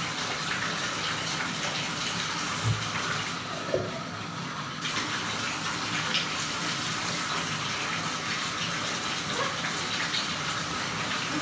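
Bathtub tap running steadily into the tub while a dog is wet down with water from a plastic cup. The rush turns duller for about a second around four seconds in, and there are a couple of soft knocks shortly before.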